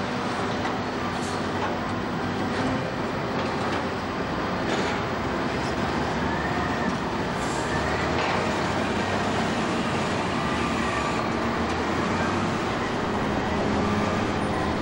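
Diesel engine of a wheel loader with a log grapple, running steadily under load as it lifts a bundle of logs off a timber trailer. A few brief knocks and short rising whines come through, about six to eight seconds in.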